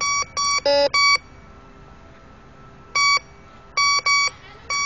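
Metal detector sounding short, same-pitched beeps, about seven of them, as its search coil is swept over a dug hole. About three-quarters of a second in there is one lower-pitched tone. The detector is signalling metal in the hole, which the detectorist believes holds coins.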